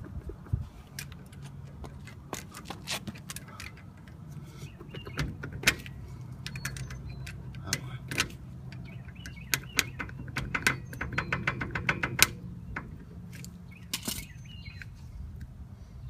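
Metal parts of a Jeep CJ7 front wheel hub clinking and scraping against each other in irregular clusters of sharp clicks as a part is worked by hand up and over a gear. A steady low hum runs underneath.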